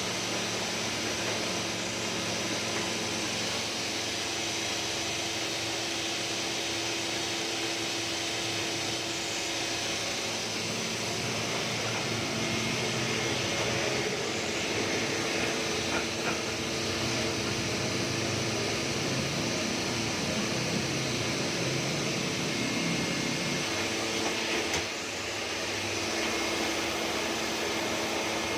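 Heidelberg GTO 52 sheetfed offset printing press running steadily during a print run, a continuous mechanical whirring hum. It dips briefly near the end.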